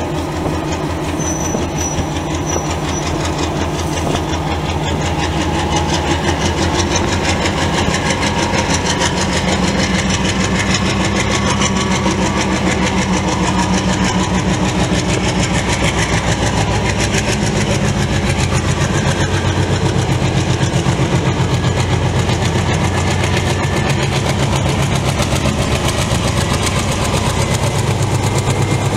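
Comboios de Portugal diesel locomotive starting a heavy freight train of open wagons, its engine working hard with a fast steady throb. The engine grows gradually louder as the locomotive draws closer.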